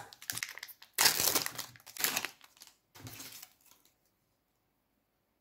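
Foil wrapper of a Pokémon booster pack being crinkled and torn open by hand, in several noisy bursts over about four seconds, then stopping.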